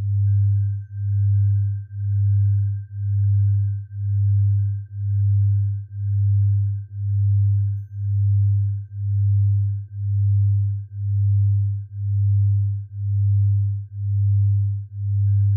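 Synthesized tinnitus sound-therapy tones: a low sine tone pulsing about once a second, over a faint steady high tone.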